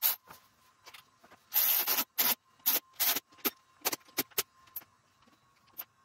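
Cordless electric ratchet driving in the throttle body bolts: one run of about half a second, then a string of short blips as the bolts are snugged down.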